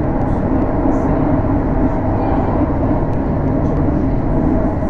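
Regional passenger train running along the line, heard from inside the carriage: a loud, steady rumble of wheels on rails.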